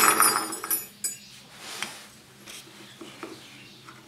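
Steel twist drill bits clinking together with a bright metallic ringing as they are set down on a wooden bench, loudest in the first second. After that come quieter scattered knocks and rubbing as a single bit is handled and fitted into a small wooden sharpening jig.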